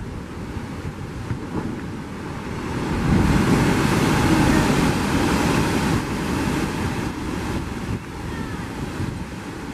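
Heavy ocean surf surging and crashing into a narrow rock chasm, a continuous rush of churning water. It swells to its loudest about three seconds in and eases off after about six.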